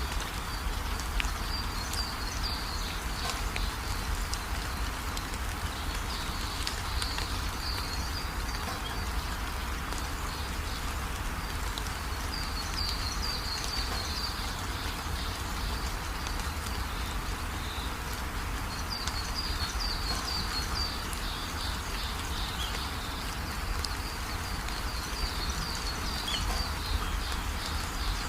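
Steady rain falling, with a low rumble underneath and bursts of high chirping that come and go every few seconds.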